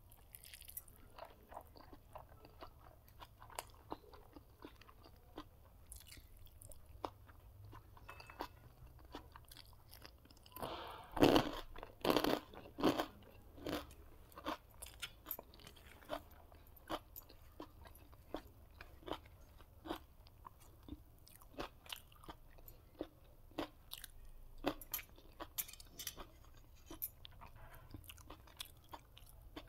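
Close-miked chewing and crunching of food, with many small crisp bites throughout and a louder burst of crunching about eleven to thirteen seconds in.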